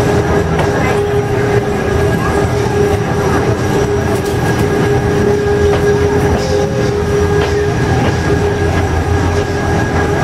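Corcovado rack railway car climbing, heard from inside the cabin: a steady rumble of the running gear with a constant whine held over it.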